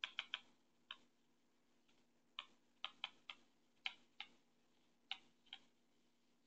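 Stylus tip tapping and clicking on a tablet screen during handwriting: about a dozen short, sharp clicks at irregular intervals over faint room tone.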